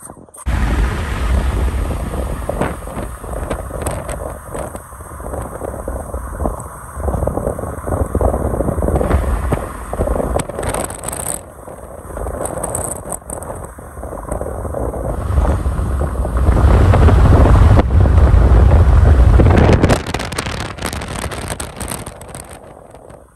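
Wind buffeting the microphone: a loud, gusting rumble that rises and falls, strongest about three-quarters of the way through.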